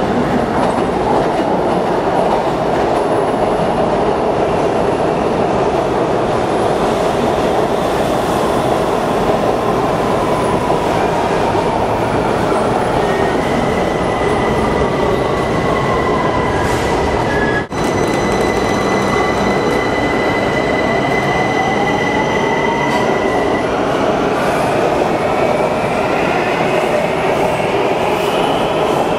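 WMATA Metrorail train running through an elevated station, with a steady rumble of wheels and motors throughout. A falling motor whine comes as the train slows, and a steady whine follows while it stands. In the last third there is a brief dropout, then a rising whine in several tones as a train accelerates away past the platform.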